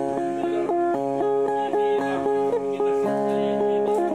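Sampe', the Bornean plucked lute, playing a quick repeating melody over a held low drone; the low note shifts about three seconds in.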